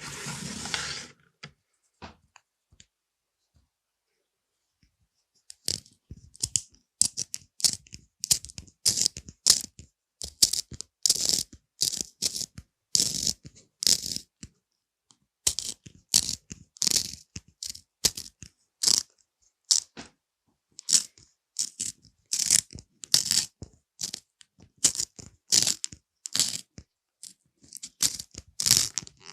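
Pencil scratching on paper in many short strokes, in irregular runs with brief pauses, starting about five seconds in. A short rustle at the very start.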